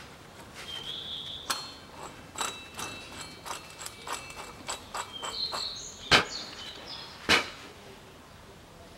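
Steel cups and fittings of a bushing press tool clinking and tapping as they are fitted around the lower engine mount: irregular metal clicks, several with short ringing notes, and two sharper clicks about six and seven seconds in.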